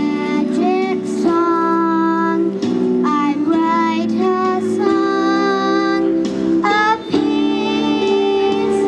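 Children's choir singing a song in unison with held notes over a steady instrumental accompaniment.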